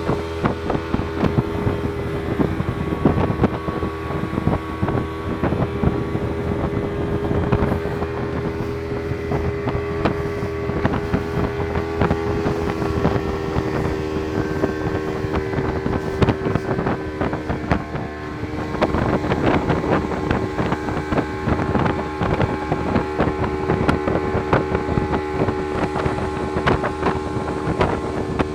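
Motorboat engine running steadily at an even pitch while under way, with wind buffeting the microphone.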